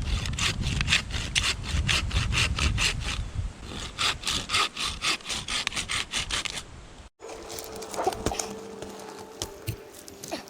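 Rapid rhythmic rasping strokes on wood, about three to four a second, with a short break about three and a half seconds in. They stop abruptly about seven seconds in, giving way to a faint steady hum and a few scattered clicks.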